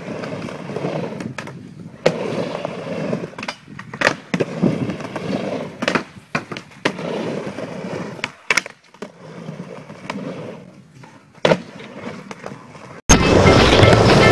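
Skateboard rolling back and forth on a miniramp: a rough rumble of the wheels with sharp clacks as the board and trucks hit the ramp. About thirteen seconds in, loud music cuts in suddenly.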